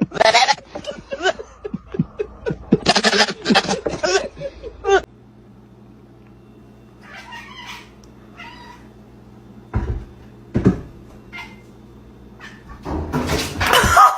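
A cat meowing repeatedly, loudest in the first few seconds. A steady low hum and a couple of knocks follow.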